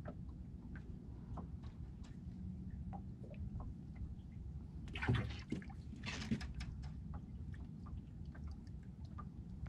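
Small waves lapping and slapping against the side of a small open boat over a steady low rumble, with a brief cluster of louder splashy clicks about five to six and a half seconds in.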